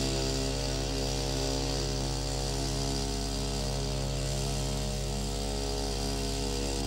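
A small motor pump's engine running at a steady speed, a continuous drone with a fast low pulsing. It is driving water in a closed loop through the boat's pipes.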